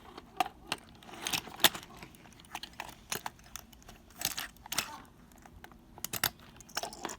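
Small plastic toy parts and packaging being handled: irregular clicks, clinks and brief rustles as pieces are picked up and set down.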